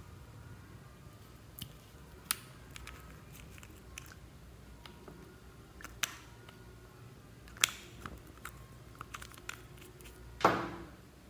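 A few sharp clicks and taps as a small bottle and its cap are handled. The loudest comes about ten seconds in, with a brief ringing tail.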